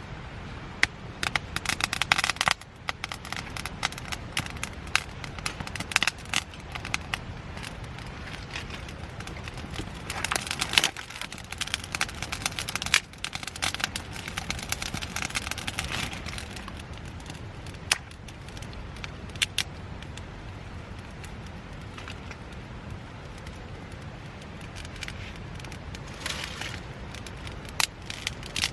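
Wood fire crackling in a camp fire pit: irregular sharp pops and snaps, coming in clusters, over a steady low background noise.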